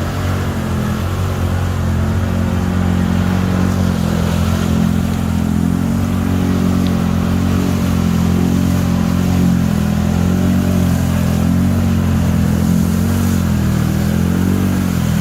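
ATV engine running continuously at moderate revs, its pitch rising and falling gently with the throttle.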